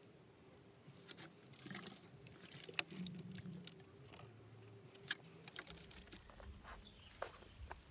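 Faint sounds of a plastic jug of liquid being handled: liquid sloshing inside it, with scattered light clicks and knocks.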